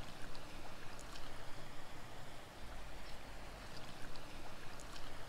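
Steady outdoor rushing noise with an uneven low rumble, wind on the microphone, and a few faint light ticks scattered through it.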